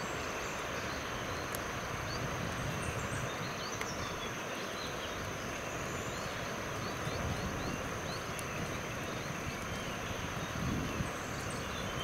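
Forest ambience: a steady hiss with many scattered short, high chirps and a steady high whine.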